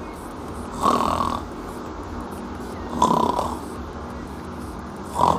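A man making two put-on snores about two seconds apart, acting as if he has fallen asleep, with a short sharp sound right at the end.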